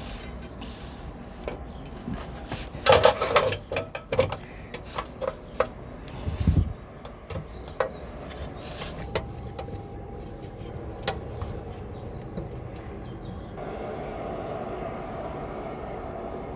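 A series of sharp knocks and clinks, loudest in a cluster about three seconds in and then more scattered, over a steady low hum; a steadier mid-pitched noise comes in near the end.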